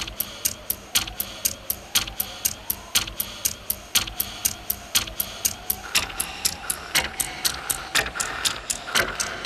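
Clock ticking quickly and evenly, about four ticks a second with a louder tick on each second, over a faint wavering hum.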